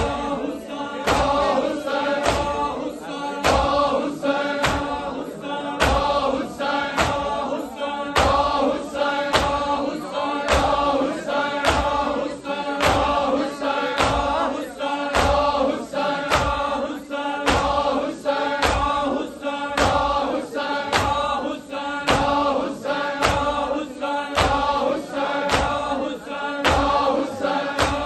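A crowd of men chanting a noha in unison while beating their chests in matam. The hand slaps land together in a steady rhythm of about two a second under the held chant.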